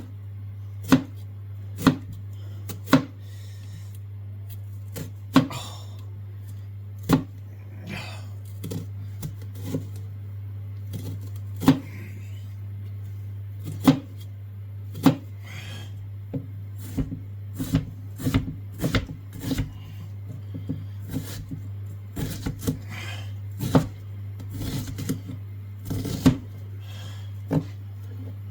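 Knife chopping vegetables on a board: irregular sharp knocks, about one a second at first, then faster and in quick runs in the second half. A steady low hum runs underneath.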